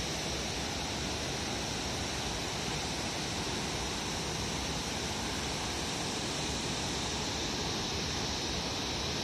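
Steady rushing of a fast white-water mountain river running over rocks.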